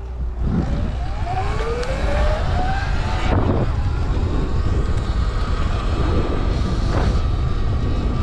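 Sur Ron electric dirt bike's motor whining as it rides, rising in pitch as it speeds up in the first couple of seconds, then holding a steady tone. Heavy wind rumble on the microphone runs under it.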